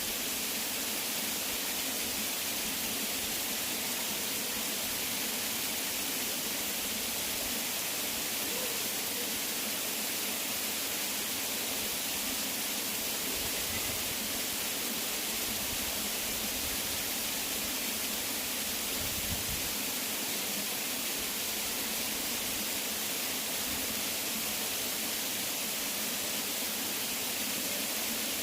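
Waterfall: a steady, unbroken rush of falling water, a dense hiss strongest in the high range with a low rumble beneath.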